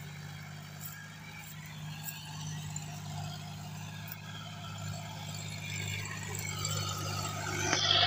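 John Deere tractor's diesel engine running under load as it pulls a disc harrow through field soil. The sound grows steadily louder as the tractor comes closer, with more hiss near the end as it passes near.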